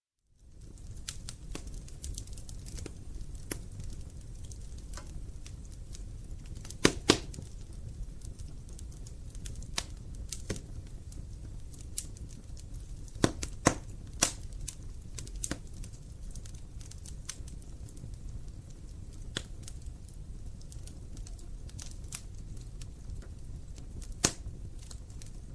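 Wood fire crackling in a fireplace: sharp snaps and pops over a low, steady rumble of flame. A pair of louder pops comes about seven seconds in, and a few more come around thirteen to fourteen seconds. The sound fades in from silence at the very start.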